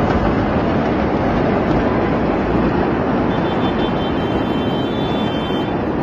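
Steady loud rushing rumble of a large fire burning under a rising smoke plume, heard across a city street, with a faint thin high whine joining about three seconds in.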